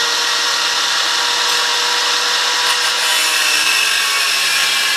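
Handheld angle grinder with a small cutoff wheel running and cutting through a steel bolt on a stake-pocket tie-down: a steady, mostly high-pitched grinding noise.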